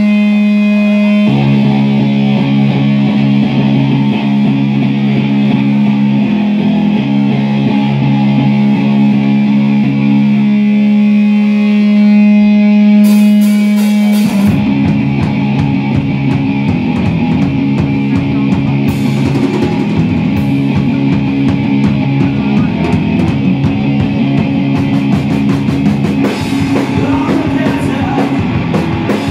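Live rock band playing loud through the PA: an electric guitar holds ringing, sustained chords, then about halfway through the drum kit comes in and the full band plays on, with cymbal crashes.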